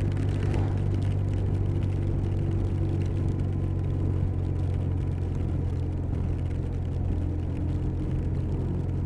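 Touring motorcycle running steadily at cruising speed, its engine a constant low drone under road and wind noise.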